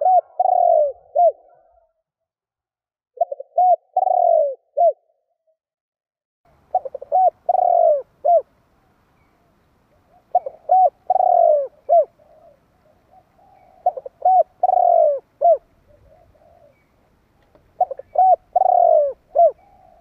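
Spotted dove cooing: six phrases, each a few quick low coos running into a longer drawn-out coo and a short closing note, one phrase every three to four seconds with pauses between.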